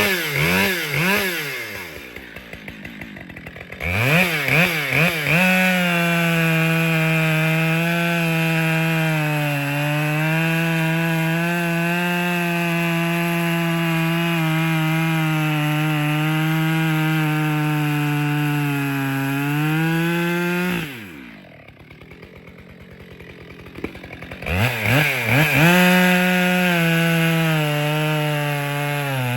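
Husqvarna 572 XP two-stroke chainsaw revved in quick blips, then held at full throttle sawing through a spruce log for about fifteen seconds, its pitch sagging slightly under load. It drops back to idle about twenty seconds in, then is revved up again near the end.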